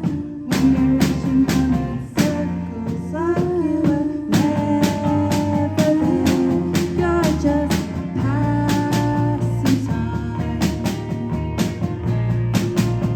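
Live band playing a rock/blues-style song, with guitar lines that bend in pitch over a steady drum beat.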